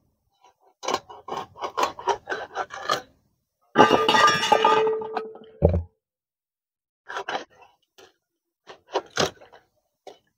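A catla fish being cut into steaks on a boti blade: a run of quick crunching, scraping strokes as the blade goes through scales and bone. About four seconds in, a loud clatter with a ringing tone as a steak drops into a stainless steel bowl, then a dull thud, and more cutting strokes near the end.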